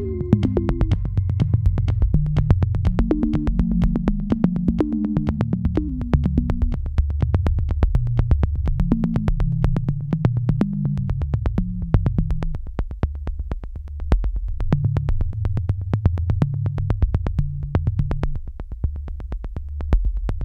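Electronic background music: a synthesizer bass line over a steady, fast beat.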